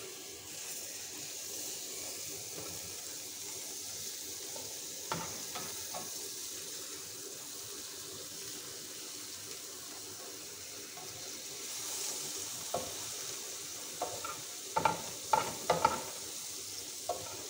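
Filled egg omelette sizzling steadily in a nonstick frying pan while being turned over and rolled, with plastic spatulas knocking and scraping against the pan a couple of times early on and in a quick cluster near the end.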